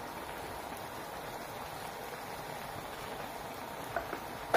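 Wok of minced field-rat stir-fry with broth simmering on the burner: a steady bubbling hiss. A couple of faint taps about four seconds in and a sharp knock right at the end.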